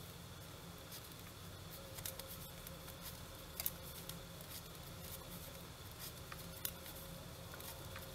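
Faint, irregular clicks and rustles of knitting needles and yarn as stitches are knitted, over a low steady background hum.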